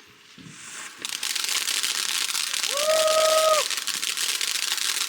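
A lit firework catches about a second in and sprays with a steady, loud hissing crackle. A short whistling tone rises and then holds for about a second near the middle.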